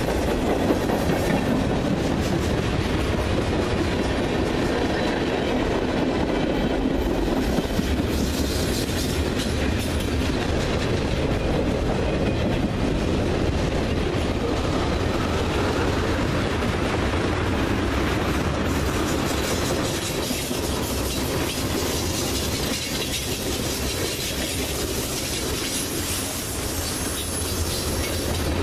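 Freight cars of a mixed freight train (tank cars, boxcars, gondolas) rolling past at close range: steel wheels rumbling and clattering steadily on the rails, easing a little in the last third.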